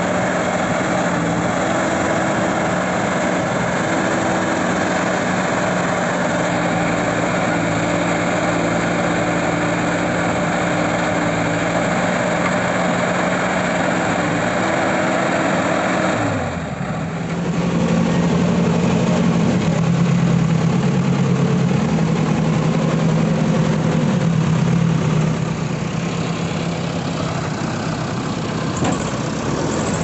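Diesel engines of a JCB 3DX backhoe loader and a soil-loaded tractor running steadily. About halfway through, the level dips briefly and the engine note changes to a lower, steady hum.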